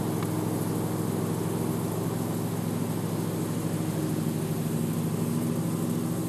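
A steady low mechanical hum, a motor running without change.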